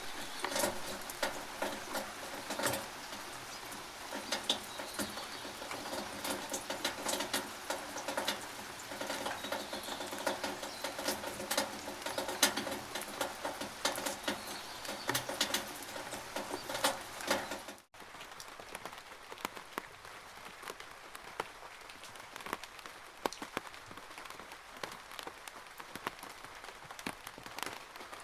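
Rainwater pattering and dripping in a rain gutter: a dense run of sharp drops over a steady splashing hiss. About two-thirds of the way through it cuts off suddenly and carries on quieter and thinner.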